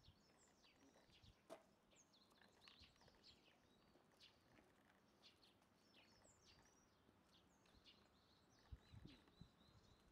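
Near silence, with faint outdoor bird chirps: short calls, many sliding down in pitch, scattered throughout. A few soft low thumps near the end.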